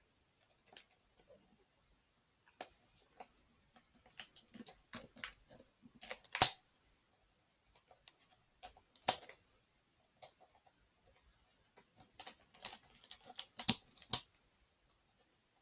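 Small cardboard Funko Mystery Minis box being prised open by hand: irregular clicks, scratches and short scrapes of fingers working at the stuck-down flap, with the sharpest snaps about six, nine and thirteen to fourteen seconds in.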